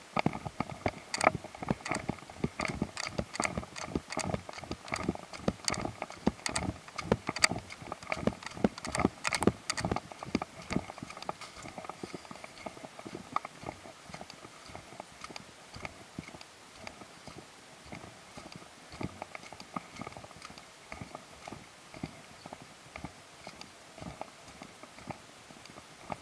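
Footsteps walking on a wet concrete road strewn with leaves and branches: a run of sharp clicks and slaps, loudest in the first ten seconds and fainter after.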